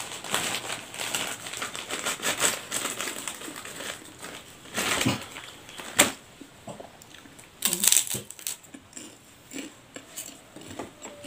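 Close-up eating sounds: slurping and chewing fried instant noodles, with spoon and fork clinking and scraping on a ceramic plate, one sharp clink about six seconds in being the loudest. Later comes a crackly burst as a krupuk cracker is broken and crunched.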